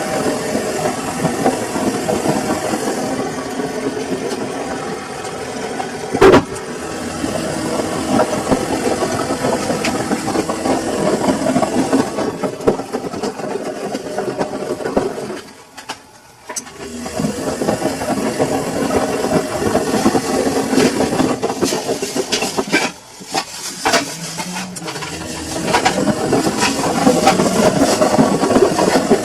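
Samsung washing machine running, a steady churning and rattling hum that stops briefly about halfway through and dips again shortly after. There is a single sharp click a few seconds in.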